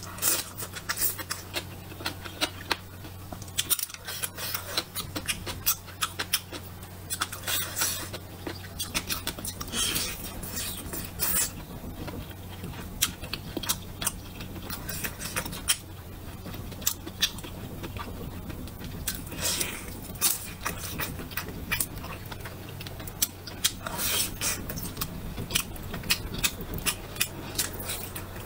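Close-miked eating: a person biting and chewing food, with many irregular sharp clicks and crunches, over a steady low hum.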